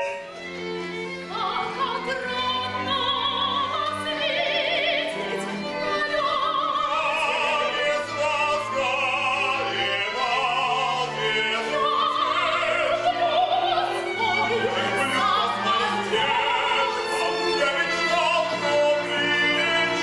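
Operatic singing with strong vibrato over classical accompaniment with sustained low notes, continuous and loud.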